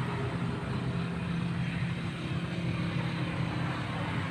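A small motor runs steadily with a low, slightly wavering hum.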